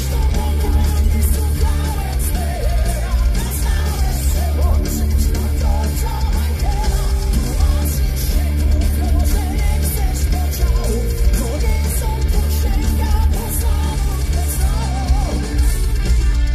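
Heavy metal band playing live: distorted electric guitars, bass and drums with shouted, sung vocals, loud and bass-heavy.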